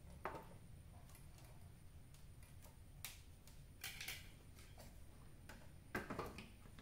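Light clicks and taps of hands handling the wires, connectors and neck board of a CRT television: one just after the start, one about 3 s in, a few around 4 s and the loudest near 6 s.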